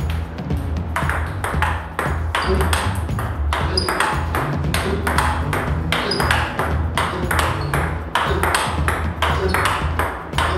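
Table tennis rally: the ball clicks sharply off rubber-faced bats and the table in a quick, even back-and-forth, several hits every second.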